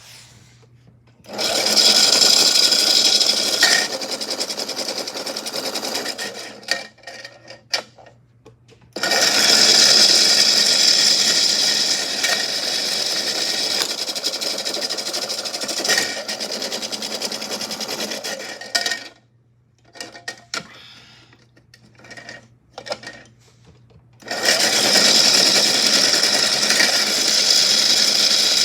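Small washing machine loaded with rocks and shells, its motor running in three long stretches that stop and restart, with short quiet gaps between, over a steady low hum.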